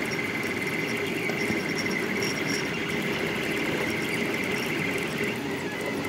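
Delta Rostock 3D printer running a high-speed print: its motors make a steady high tone over a dense, busy lower buzz as the print head moves rapidly.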